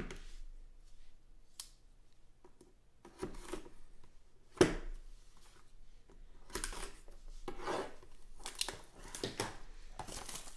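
Plastic shrink wrap being torn and peeled off a cardboard trading-card hobby box, in a series of crinkling rustles, with one sharp tap about four and a half seconds in.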